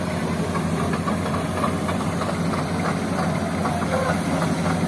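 Hitachi hydraulic excavator's diesel engine running steadily while the machine works its boom and bucket.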